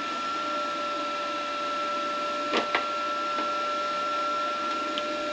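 Hynade MTS155 FX flux-core welder's cooling fan running steadily, a whir with a thin high whine, as the welder sits switched on and idle. Two light clicks about two and a half seconds in.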